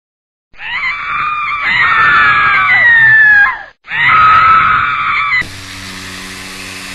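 A person screaming twice, high-pitched and falling in pitch: a long scream of about three seconds, then a shorter one. Then the steady hum of a small handheld fan takes over.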